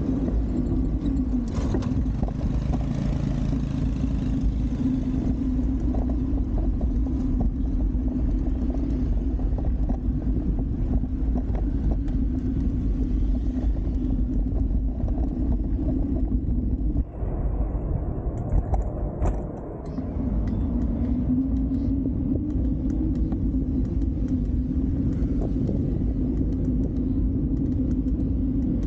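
Steady low rumble of wind and road noise on the microphone of a camera carried on a moving bicycle, with street traffic mixed in. It drops briefly twice past the middle.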